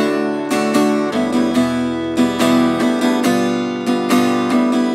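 Steel-string acoustic guitar strummed briskly in a slow go-go rhythm at medium tempo. The dotted strumming pattern goes down-up, down-down-up, through a simple open-chord progression.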